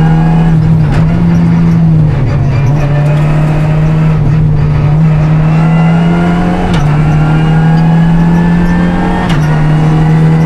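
Renault Clio Rally5's turbocharged four-cylinder engine driven hard on a rally stage. The note climbs steadily, then drops sharply with a short click at each upshift: once about a second in, again about seven seconds in and again near the end. Between about one and five seconds in the engine note wavers, as the car lifts and picks up again.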